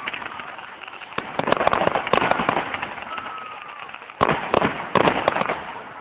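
Fireworks display going off: rapid runs of crackling bangs in two bursts, one about a second in and another just after four seconds, with a brief faint whistle between them.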